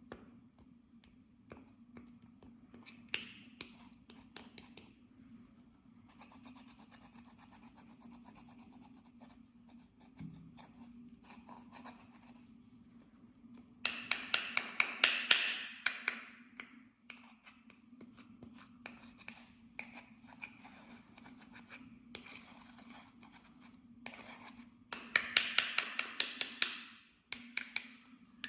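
Clear slime being squished and folded by hand, with faint scattered clicks and rubbing. Twice, about halfway through and again near the end, it gives a couple of seconds of dense, loud crackling and popping.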